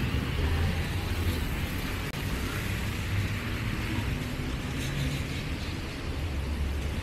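City street traffic: cars running and passing, a steady low rumble with engine tones rising and fading.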